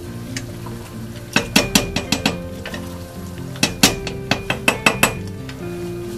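A wooden spatula stirring a boiling mixture in a stainless steel pot and knocking against the pot. There are two runs of quick clinks, each about a second long, one a little over a second in and one near the middle, and the pot rings briefly after them. Soft background music plays underneath.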